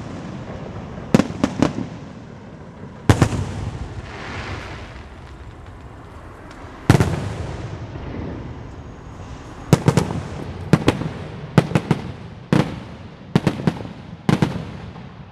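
Fireworks display bursting: single bangs about one, three and seven seconds in, then a quick run of several bangs and crackles from about ten to fourteen seconds in, each dying away with a short rumble.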